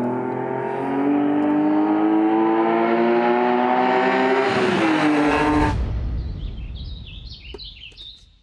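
BMW 3 Series Compact race car's engine running at high revs, its pitch climbing slowly as it accelerates, then dropping and cutting off suddenly about six seconds in. After it, a fainter wavering high-pitched squeal that fades away.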